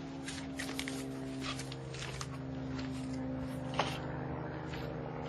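A steady low mechanical hum with a few light clicks and knocks of handling.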